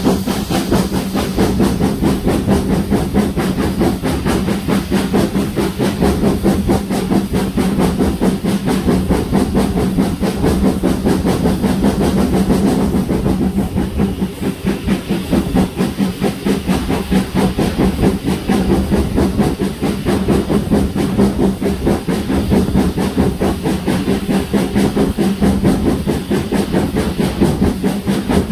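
GWR Manor-class 4-6-0 No. 7822 Foxcote Manor working a train, its exhaust beating in a fast, even rhythm over a steady hiss of steam and the running noise of the train.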